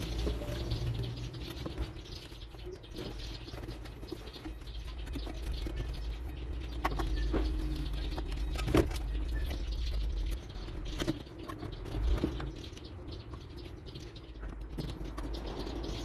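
Hands rustling and scraping among a truck's wiring harness and plastic connectors, with a few sharp clicks and knocks, the loudest about nine seconds in.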